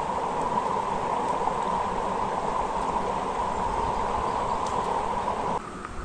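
Shallow forest stream running over rocks and a small cascade: a steady rush of water that cuts off suddenly near the end.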